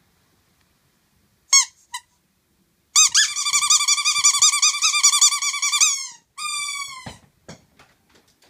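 Small dog whining in high-pitched, wavering cries: two short yelps, then a long quavering howl-like whine of about three seconds, and a shorter cry that falls in pitch.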